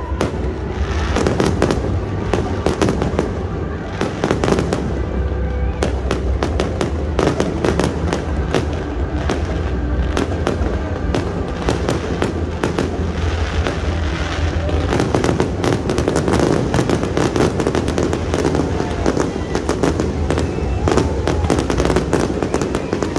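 A fireworks barrage: a rapid, unbroken string of bangs and crackles from many aerial shells bursting over one another.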